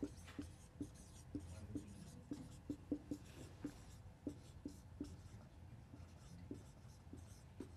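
Dry-erase marker writing on a whiteboard: a faint run of short strokes and taps as letters are written, thinning out in the last couple of seconds.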